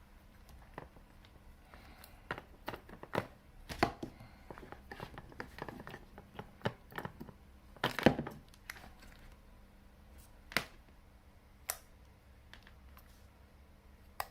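Hands handling small hard objects: irregular clicks and knocks with some rustling and tearing, busiest in the first two-thirds and loudest about eight seconds in, then a few single clicks.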